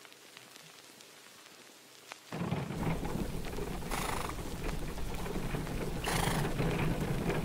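Faint ticks at first. About two seconds in, a steady low rushing noise starts suddenly, and two short breathy bursts from a horse, snorts about two seconds apart, come on top of it.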